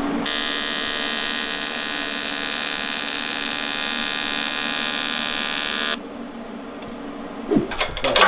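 TIG welding arc on aluminum, an AC arc buzzing steadily and high-pitched, cutting off sharply about six seconds in. A few metallic clanks and knocks follow near the end.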